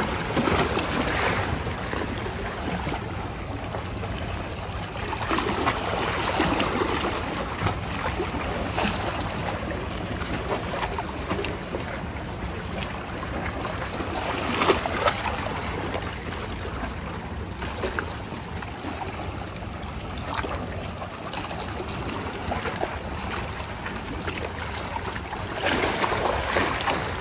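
Sea waves washing against the rocks of a breakwater, rising and falling, with wind buffeting the microphone.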